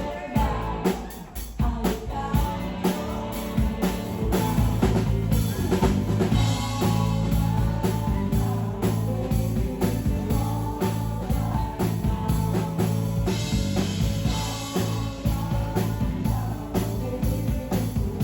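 Background music with a steady drum beat, bass and sung vocals.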